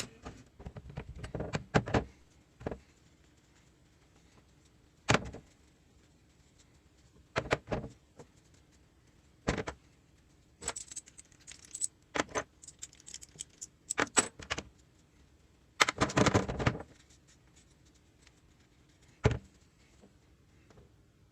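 Small metal parts and hand tools clinking and knocking as they are handled, in scattered sharp clicks with a busier cluster in the middle and one longer rattle near the end.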